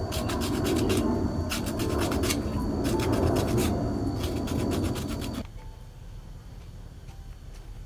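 Bamboo being rubbed down by hand: a rough, rasping scrape in quick back-and-forth strokes that stops suddenly about five seconds in.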